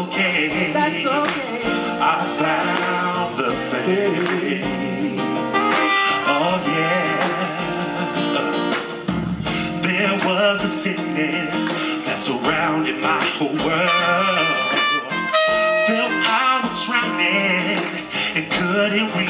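Live band playing with singing over guitar, keyboard and drums.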